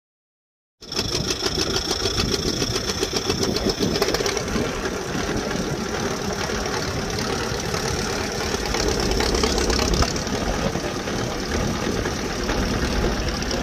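Old farm tractor engine idling at a steady level. It cuts in abruptly about a second in.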